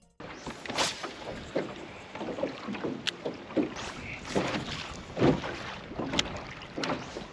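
Water slapping against a small fishing boat's hull in irregular surges, with wind buffeting the microphone and a few sharp clicks.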